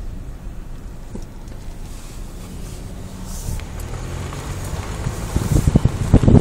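A car driving slowly, a steady low rumble heard from inside the cabin. From about five seconds in, irregular loud gusts of wind buffet the phone's microphone.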